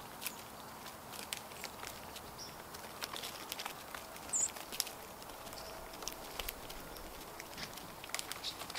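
Birds foraging on the ground in dry litter: scattered light ticks and rustles of pecking and hopping. There is one brief high chirp about four and a half seconds in.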